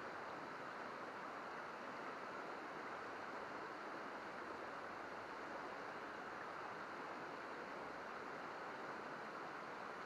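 Shallow river babbling over rocks and stones in a steady, even rush of running water.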